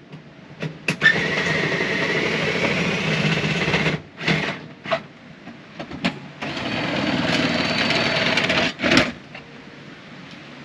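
Small electric motor whirring in two runs of about three and two and a half seconds, with a whine rising in pitch during the first run and clicks where each run starts and stops.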